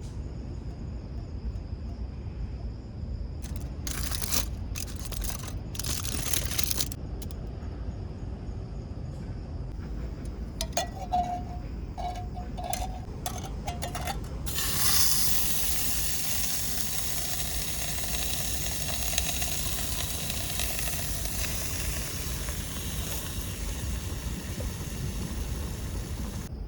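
A few rustling bursts and clicks, then from about halfway in a steady hiss that carries on to the end.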